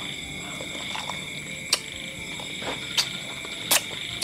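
Mouth sounds of someone sucking and smacking on a chicken bone: a few sharp wet clicks, three of them loudest, about a second apart. Under them runs a steady high trilling of night insects.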